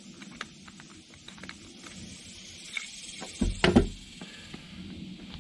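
Small metal clicks as a valve core is worked out of a Schrader valve soldered into a pressurised aerosol can, over a faint steady hiss. A short, loud rush of air about three and a half seconds in marks the pressure being let out of the can.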